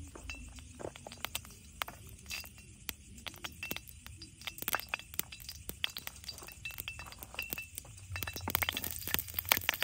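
Scattered sharp clicks and clinks as chopped shallots, garlic and chilies are scraped from a ceramic plate over a wok of heating oil. From about eight seconds in, denser and louder crackling begins as the first pieces start to drop into the hot oil.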